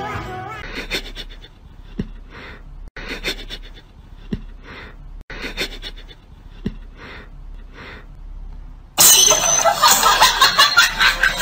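Short breathy puffs, about one a second, as a cat sniffs at a striped-socked foot, with a few soft clicks among them. About nine seconds in, a loud, noisy outburst begins.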